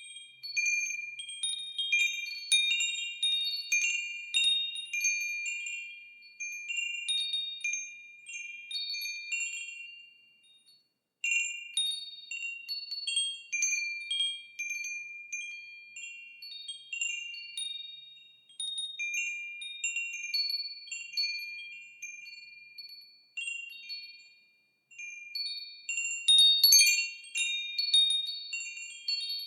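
Wind chimes ringing in irregular clusters of high, lingering tones that overlap and fade. They fall silent for a moment about ten seconds in, and the busiest, loudest clanging comes near the end.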